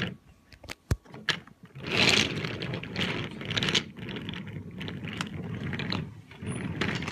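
Wooden toy train cars rolling along a table, their wooden wheels rumbling steadily, with a few sharp clicks and knocks in the first second or so as the cars are handled.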